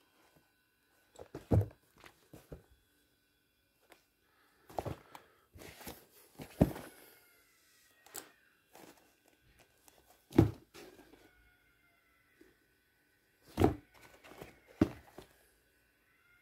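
Sneakers being picked up and set down on a carpeted floor: about six dull thunks at uneven intervals, with quieter knocks and handling noise in between.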